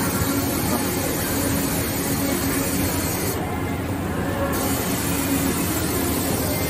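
Steady machinery noise on a workshop floor: a constant low hum under a hiss. The high part of the hiss drops away for about a second midway, then returns.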